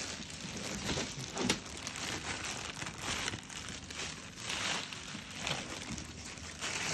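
Plastic wrapping crinkling and rustling as it is handled and peeled off a boxed collectible figure, in irregular bursts with a sharp crackle about one and a half seconds in.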